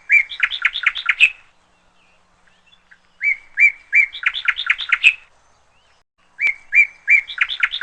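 A small songbird singing the same short phrase three times, about three seconds apart: a couple of clear notes, then a quick run of chirps.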